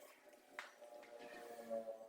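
Faint background music with held notes.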